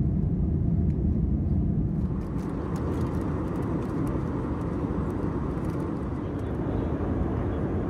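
Airbus A320-232 cabin noise in flight: a steady low rumble of engines and airflow. About two seconds in it turns to a brighter, steady hiss, with a few faint ticks over it.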